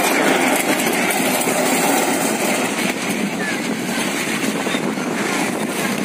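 Violent squall wind, a loud, steady rushing noise.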